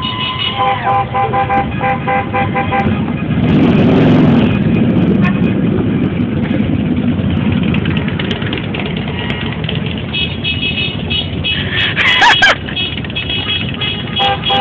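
Many car horns honking at once in long overlapping blasts of several different pitches, dropping out and starting up again. About four seconds in, a loud rushing noise swells up over them. The horns thin out for several seconds and then start up again.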